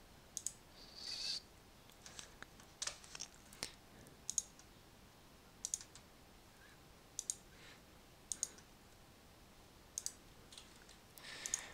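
Computer mouse clicking, about a dozen sharp clicks, some single and some in quick pairs, spaced irregularly. There is a short soft hiss about a second in and another near the end.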